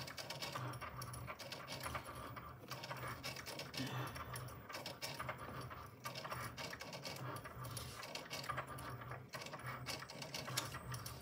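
Cricut cutting machine drawing with a pen: its carriage and roller motors run in short, uneven bursts of whirring with light clicking, like a small sewing machine.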